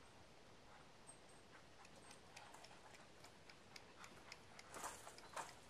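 Faint hoofbeats of a Haflinger-cross colt walking on dirt and straw footing: soft, irregular thuds that grow louder near the end.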